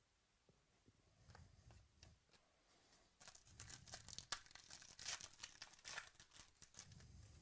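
Foil wrapper of a baseball card pack being torn open and crinkled, a quiet crackling rustle that thickens from about three seconds in.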